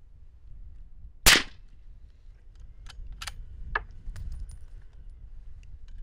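A single suppressed shot from a .308 rifle fitted with a Q Thunder Chicken suppressor: one sharp crack about a second in. A few faint short clicks follow about two seconds later.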